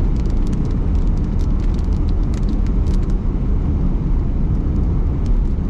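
Steady low rumble of a car on the road, with scattered light ticks over it.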